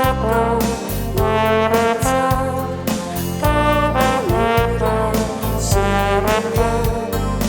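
Pop music from a song compilation: a sustained, wavering melody line over a steady bass and a regular drum beat.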